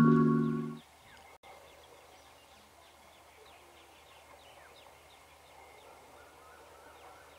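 Electronic intro chord fading out within the first second, followed by faint outdoor ambience with birds chirping repeatedly in short, high calls.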